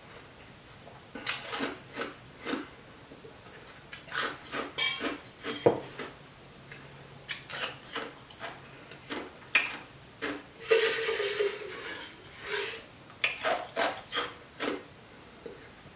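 Ice cubes being chewed and crunched, in irregular sharp crunches, with a longer clattering rattle of ice about eleven seconds in.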